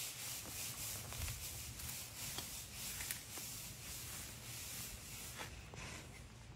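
Faint scraping and crunching of a Komodo dragon's clawed feet on loose stones and gravel as it walks, with a few scattered small clicks over a steady hiss.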